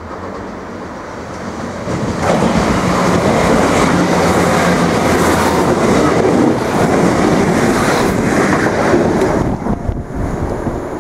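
Irish Rail 22000 class diesel multiple unit passing through a station: a steady low diesel engine tone at first, then the loud rumble and clatter of the wheels on the rails from about two seconds in, falling away near the end.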